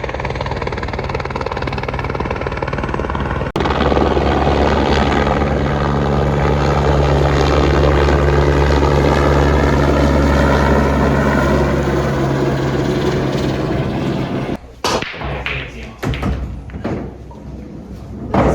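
A steady engine drone with a strong low hum, louder after an abrupt cut about three and a half seconds in. Near the end it gives way to quieter, irregular knocks and clatter.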